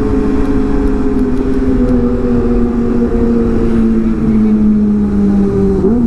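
Sport motorcycle engine running at steady revs under the rider, its pitch sinking slowly as the bike eases off, with a quick rev change near the end, over low wind rumble.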